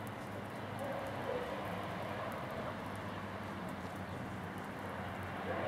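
Old Cat 4 copper data cable overloaded with heavy current, its insulation sizzling as it smokes and burns off, with a steady low hum underneath.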